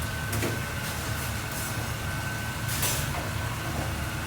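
Restaurant kitchen noise: a steady low machine rumble with a thin steady high whine over it, and a few short hissing noises, once just after the start and again around three seconds in.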